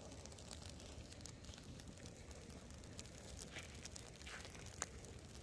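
Handheld gas weed-burner torch running faintly with a steady low rush, and scattered light crackles from the weeds burning.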